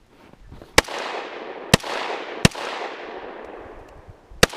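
Four gunshots from a repeating firearm, three in quick succession under a second apart and a fourth about two seconds later. Each is a sharp crack followed by a long echo that rolls away.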